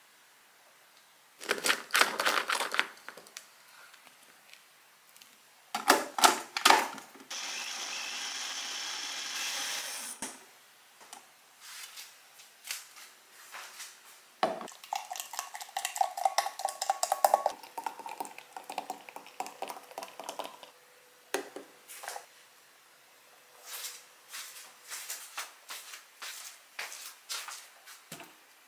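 Kitchen handling sounds: a spoon clinking and tapping against a plastic blender cup, a steady whirr of a small personal blender for about three seconds, then clinks and light knocks of a glass and a plate being handled and set down.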